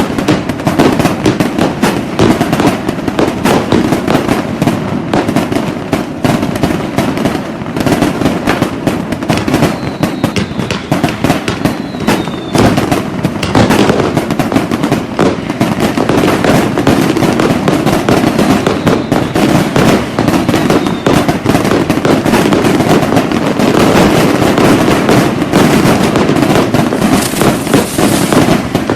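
Dense New Year fireworks and firecrackers going off without a break, a continuous rapid crackle of pops and bangs, with a faint high whistle about a third of the way in.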